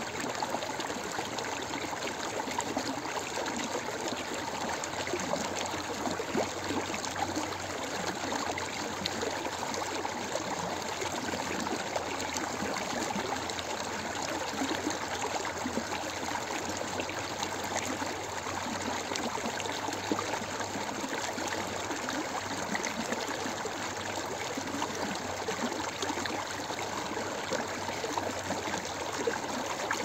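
A stream of running water, flowing steadily without a break.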